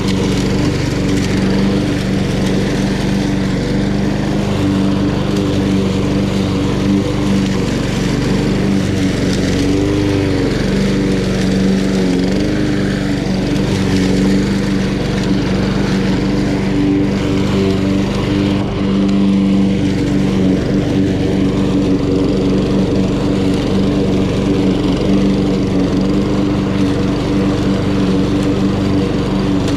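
Honda GCV170 single-cylinder four-stroke engine on a walk-behind lawn mower running steadily while cutting grass, its pitch wavering briefly a little over ten seconds in.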